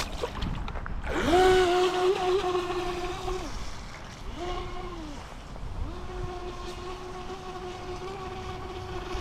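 Brushless motor of an RC speedboat whining under throttle. It comes on with a quick rising pitch about a second in and runs for two seconds, gives a short burst, then holds a steady whine from about halfway on.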